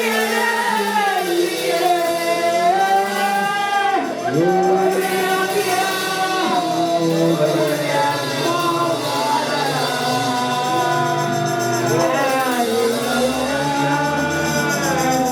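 Gospel worship song: voices singing long, held melodic lines over instrumental backing.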